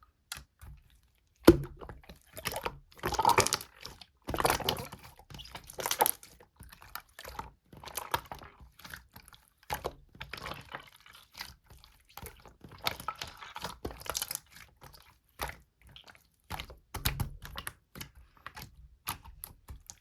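Slime being squeezed and pressed by hand: an irregular run of sticky clicks, pops and squishes, thickening into dense crackling for a few seconds at a time.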